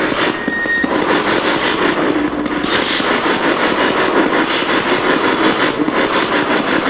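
Spirit box sweeping rapidly through radio stations: a loud, steady stream of choppy static, with a brief high tone about half a second in.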